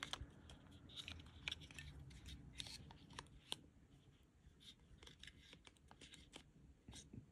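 Faint plastic clicks and scrapes of a Petzl CORE battery pack being pushed into the plastic battery compartment of a Petzl Actik Core headlamp, the pack not wanting to seat. The clicks come thickest in the first few seconds, then grow sparser.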